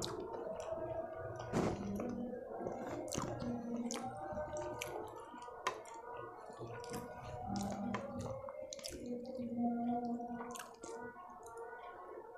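Close-miked eating sounds: fingers squishing and mixing masala rice on a steel plate, with wet chewing and many sharp mouth clicks and smacks.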